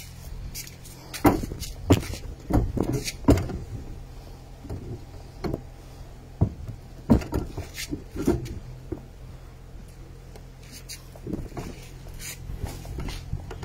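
Irregular knocks and clicks, a few at a time, over a steady low hum.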